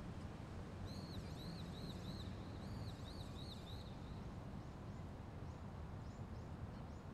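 A small bird chirping in two quick phrases of repeated arched notes, about four a second. It is followed by sparser, fainter chirps, over a steady low outdoor rumble.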